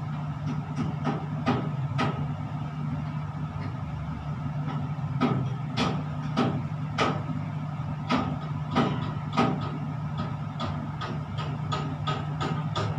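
Steady low hum inside a tower crane cab, with a fainter steady whine above it, broken by irregular sharp clicks and taps as things are handled on the cab floor.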